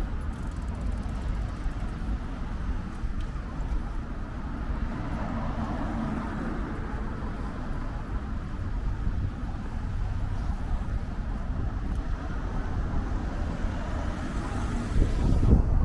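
City street traffic: vehicles running by in a steady rumble, with one passing louder shortly before the end.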